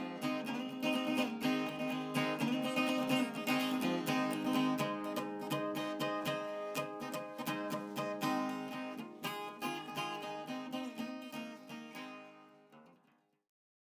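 Background music: acoustic guitar strummed and picked, fading out to silence near the end.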